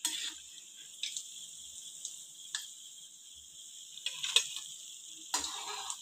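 Hot oil hissing steadily in a kadhai as fried egg bhajis are lifted out, with a few light clinks of a steel slotted spoon against the pan and a steel plate, the loudest about four seconds in and again near the end.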